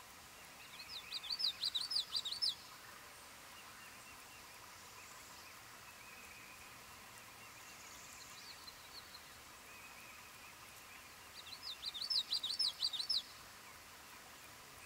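Northern parula singing twice, each song a quick run of high notes lasting under two seconds, about ten seconds apart. Fainter distant birdsong lies between them.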